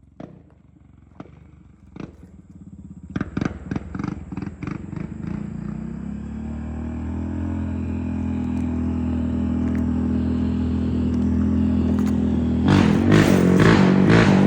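A few sharp knocks, then the single-cylinder engine of a Yamaha Raptor 700 ATV with an aftermarket exhaust fires in separate pulses and catches, settling into a steady idle that grows louder. Near the end it gets louder again with short throttle blips.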